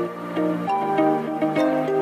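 Instrumental background music: a gentle melody of short notes over held chords, with the chord changing about two thirds of a second in.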